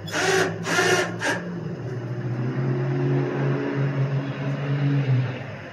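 Three short harsh screeches in the first second and a half, then an engine running with uneven revving, its low hum swelling and easing several times before dropping away near the end.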